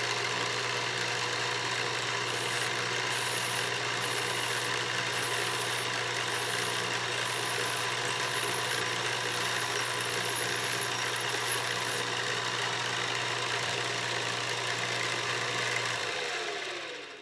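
Benchtop mill-drill running, its twist drill boring into a brass pump casting. It is louder with a thin high whine about six to twelve seconds in while the bit cuts, and near the end the motor winds down in pitch as the sound fades.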